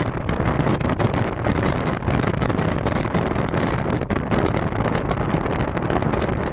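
Heavy wind buffeting the microphone: a loud, steady rumble broken by frequent short gusty thumps.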